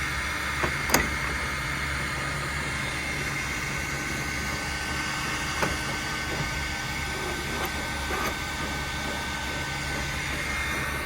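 Steady mechanical hum with a faint high whine, broken by a few sharp clicks, the loudest about a second in and another a little past the middle.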